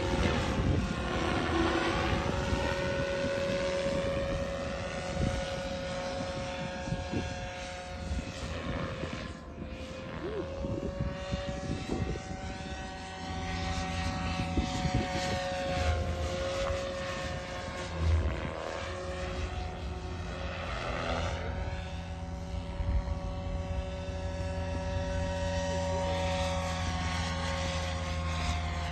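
SAB Goblin 570 electric RC helicopter in flight: a steady high whine from its 6S-powered motor and main rotor. The pitch wavers and swings up and down as it banks and passes.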